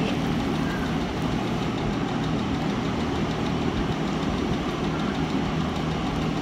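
A pressure washer's motor running steadily with a constant hum while water sprays from the wands onto the concrete floor.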